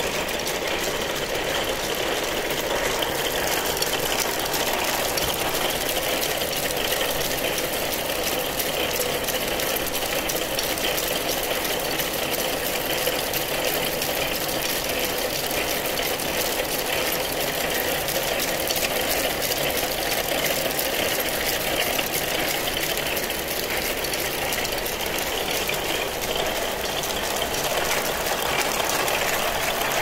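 Copper wire braiding machine running steadily, its bobbin carriers weaving the copper braid shield onto RG-213 coaxial cable, with a fast, even mechanical rattle.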